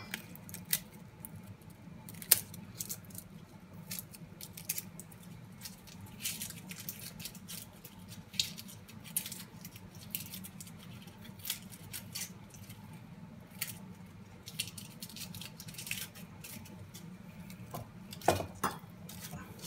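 Dry onion skin being peeled off by hand, with short, irregular papery crackles and clicks, over a low steady hum.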